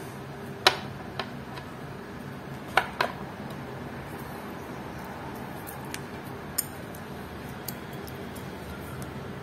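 Sharp metallic clicks and clinks from a stainless steel watch bracelet and a watch pin tool being handled: scattered single clicks, the loudest just under a second in and two close together about three seconds in, with fainter ticks later.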